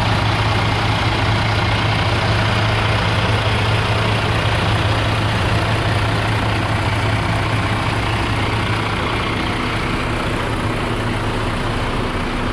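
Detroit Diesel DD15 14.8-litre inline-six diesel of a Freightliner Cascadia idling steadily, heard up close at the engine bay. Near the end the low hum weakens a little and a steady higher tone comes in.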